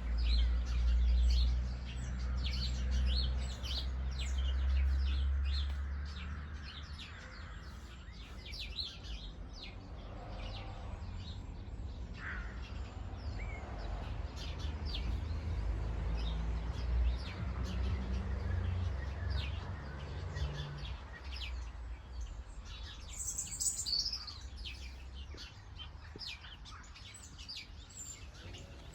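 Small birds chirping and calling over and over, with one louder call about three-quarters of the way through. Underneath, a low rumble is strongest at the start and dies away about two-thirds of the way in.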